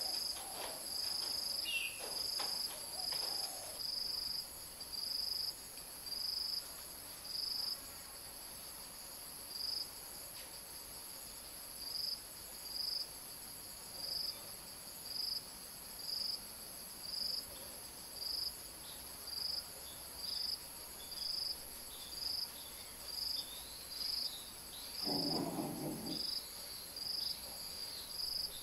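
Insects calling: a steady high-pitched hum under a regular chirp that starts at about two a second and slows to about one a second. A short, lower-pitched sound lasts about a second near the end.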